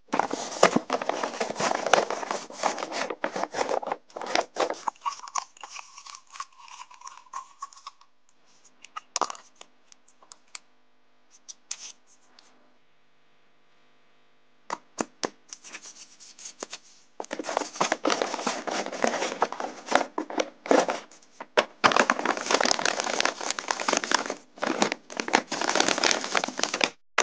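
Paper rustling, crinkling and tearing as handmade paper blind bags are handled, squeezed and opened. It is busy for the first few seconds, goes mostly quiet in the middle with a few scattered crackles, then picks up again for the last ten seconds.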